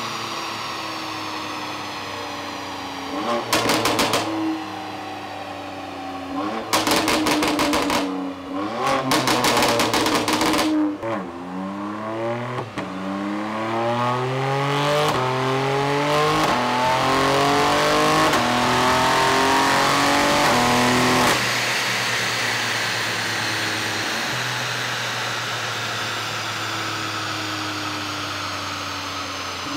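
BMW M3 G80's twin-turbo straight-six on a rolling road, heard through a Scorpion and then an Akrapovic aftermarket exhaust. It idles, gets three short, sharp rev blips, then makes a long pull that rises in steps with a drop at each upshift. About 21 seconds in, the pull cuts off suddenly and the engine settles back to a steady idle.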